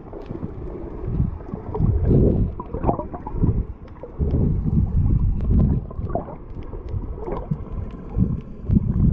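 Muffled water sloshing and gurgling in irregular surges, with faint clicks, as a snorkeller swims at the surface in choppy water.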